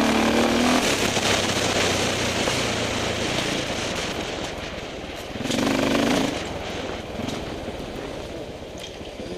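KTM 525 EXC four-stroke single-cylinder dirt bike engine running under load on a trail ride, revving up near the start and again about halfway through and easing off in between, over a steady hiss.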